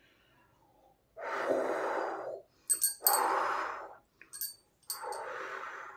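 A person breathing out forcefully three times, each breath a noisy rush about a second long, with short metallic clinks of bangles between the breaths.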